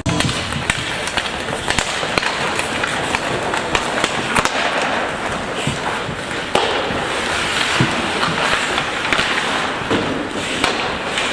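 Ice hockey play on a rink: skates scraping the ice and many sharp knocks of sticks, puck and boards, over a steady hiss of arena noise.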